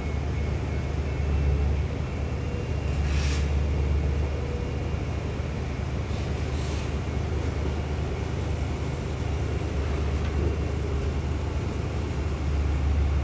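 Steady low rumble of distant construction-site and traffic ambience, with two short hisses about three and seven seconds in.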